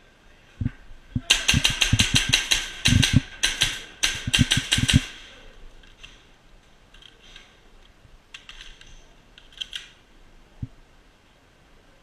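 Airsoft guns firing: several rapid full-auto bursts of sharp shots, about eight a second, in the first five seconds. A few scattered single shots follow.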